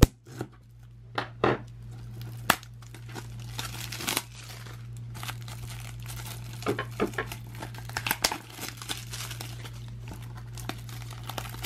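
Thin plastic shrink wrap crinkling and tearing as it is cut with scissors and peeled off a Blu-ray case, with many irregular sharp crackles and snaps.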